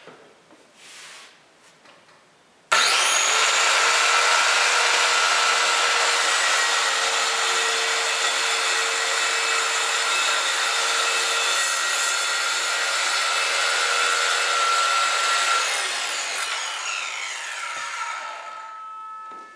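Circular saw started about three seconds in and cutting a shallow kerf slot across an MDF panel, running steadily through the cut. Near the end the trigger is released and the blade winds down with a falling whine.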